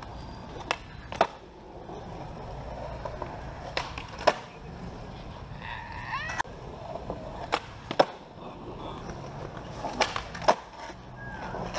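Skateboard wheels rolling on flat concrete, broken by sharp cracks of the tail popping and the board landing, in pairs several times as flatground flip tricks are tried. A pop and landing about ten seconds in is a 360 kickflip.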